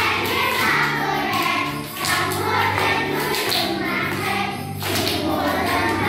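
A children's song with a steady beat and a backing track, sung by a group of voices, with hands clapping along.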